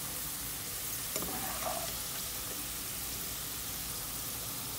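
Hot oil sizzling steadily around diced potatoes being fried in a wok, still hot after the burner has been switched off, as they are scooped out with a metal slotted spoon. The spoon knocks once about a second in.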